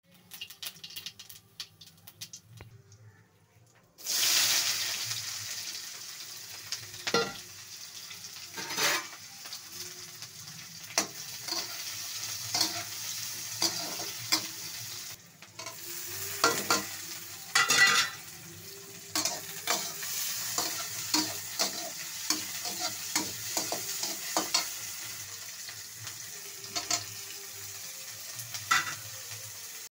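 Cumin seeds crackling in hot oil in a metal kadai, then a sudden loud sizzle about four seconds in as sliced onions go into the oil. The frying runs on as a steady sizzle, with a metal slotted spatula scraping and knocking against the pan many times.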